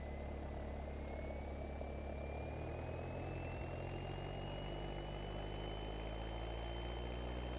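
Piper Cherokee's engine running steadily at about 2,000 RPM for the pre-takeoff run-up, a low, even drone heard faintly, with a thin high whine slowly rising in pitch.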